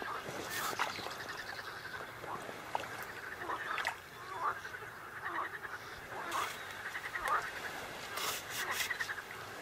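Frogs croaking in a chorus of short repeated calls, with several sharp clicks and knocks, a quick cluster of them near the end.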